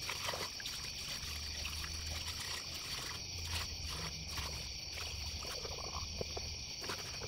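Engine coolant pouring from a gallon jug through a plastic funnel into a radiator, a soft trickle, over a steady high-pitched chorus of night insects such as crickets.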